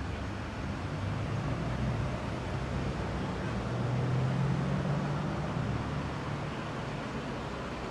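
Urban street traffic: a passing vehicle's engine hums low, growing louder toward the middle and then fading, over a steady wash of road noise.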